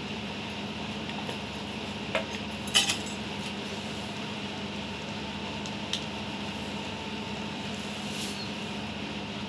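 A few sharp clinks of kitchenware being handled, the loudest about three seconds in and a lighter one near six seconds, over a steady room hum.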